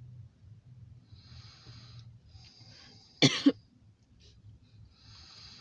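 A person coughs once, a short harsh cough in two quick bursts about three seconds in, over a faint low hum.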